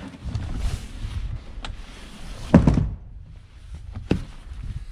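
Hinged seat lids on a boat's bow seating being lifted and let down, with two dull knocks, the louder about two and a half seconds in and a lighter one about a second and a half later, amid handling rustle.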